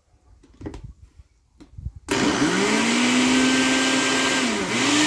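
Britânia countertop blender switched on about two seconds in, its motor spinning up with a rising whine and then running steadily, dipping briefly near the end and picking up again. The jar is packed with firm pineapple chunks and no water. A few light knocks come before it as the jar is seated on the base.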